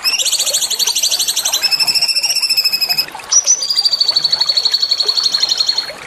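A small songbird singing rapid high trills: a fast rolling trill, switching about one and a half seconds in to a buzzier steady trill, then a brief break around three seconds in, a short note, and a long even trill.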